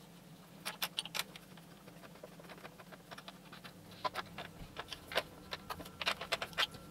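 Small metallic clicks and rattles in short clusters as a hand tool works a hidden self-tapping screw out of the saw's housing through an access hole.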